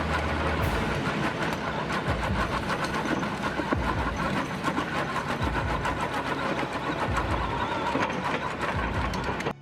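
Heavy machinery running under load while breaking up wood, with a dense, continuous crackling and grinding.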